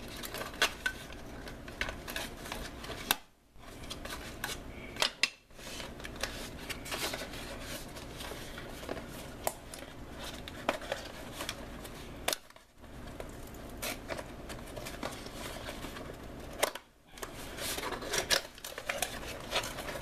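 Cardboard box and packaging being handled and pulled apart while a Gerber Gorge folding shovel is worked out of it: scattered rustles, scrapes and sharp clicks. The sound cuts out almost completely for a moment four times.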